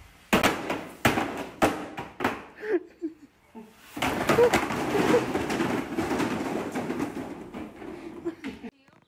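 A series of sharp knocks over the first few seconds, then from about four seconds a long clatter of a stack of flat cardboard boxes tumbling down a stairwell.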